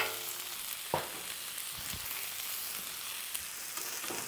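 Chopped vegetables (broccoli, onion, bell peppers) sizzling steadily on a hot Blackstone flat-top griddle, with a light knock about a second in and a few faint ticks.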